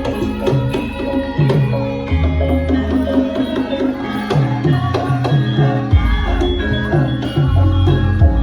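Javanese gamelan music accompanying a Lengger Wonosobo dance: hand-drum strokes over ringing metal tones and a shifting low bass line.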